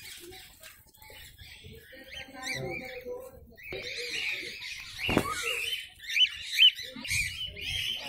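Flock of cockatiels calling: many short chirps and sharp rising calls overlapping, busier and louder in the second half, with the loudest calls coming about six seconds in.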